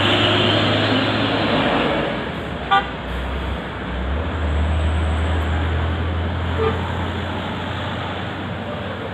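Road traffic: a heavy vehicle's engine runs low and steady, its hum dropping slightly in pitch a few seconds in, with a single short horn toot near the three-second mark.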